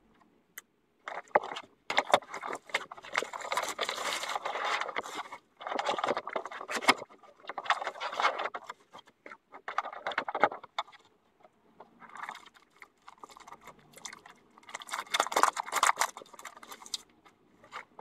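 Hands unpacking a white plastic stay-wet palette: irregular bursts of rustling and scraping, with sharp clicks and knocks as the cardboard sleeve slides off, the plastic lid comes open and the paper sheets are lifted out.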